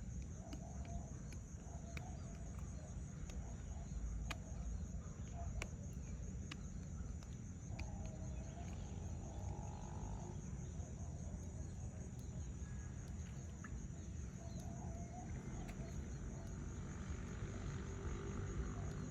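Fowl-like bird calls: short clucking notes repeated every second or so, with a longer call about eight seconds in, over a steady low rumble and a few sharp clicks.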